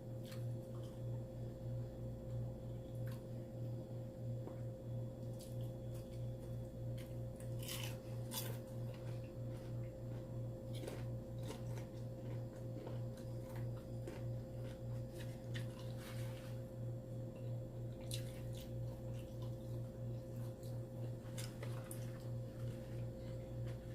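Close-miked chewing and wet mouth sounds of someone eating chicken, with a few short smacks and clicks. Under it runs a steady low hum that pulses a few times a second.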